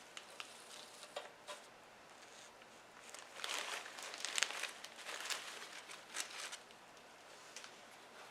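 Artificial fall foliage and berry picks rustling and crinkling as they are handled and pushed into place, with a few small clicks and taps, busiest in the middle.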